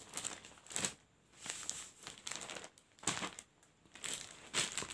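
Packaging and folded cotton sarees crinkling and rustling as they are handled, in irregular bursts with short pauses between.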